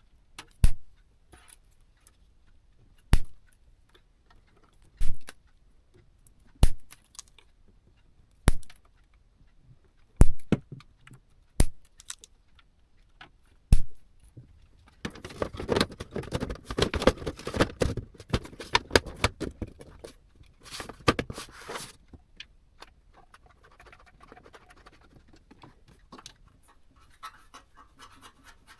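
Hands working on computer hardware: a series of sharp separate clicks and knocks every second or two, then about seven seconds of dense scraping and rustling, fading to faint rubbing near the end.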